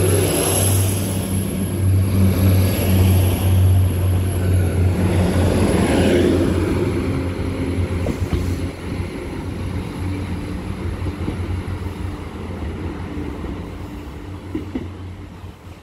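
Class 175 diesel multiple unit pulling out and departing: a steady low diesel engine hum with wheel rumble over the first half, fading gradually as the train draws away.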